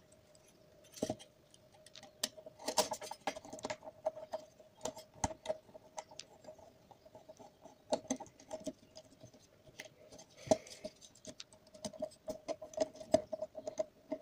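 Plastic parts of a camcorder lens assembly being handled and worked apart by hand: irregular light clicks, taps and small scrapes, a few sharper clicks among them.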